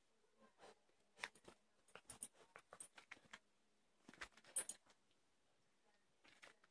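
German Shepherd puppy chewing and mouthing a toy: faint soft clicks and rustles in two flurries, about a second in and again about four seconds in.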